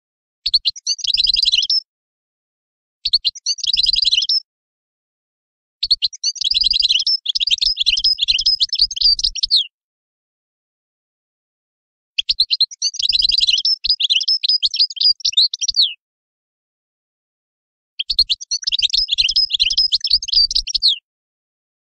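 European goldfinch singing: five bouts of rapid, high twittering song, the longest about four seconds, with dead silence between them.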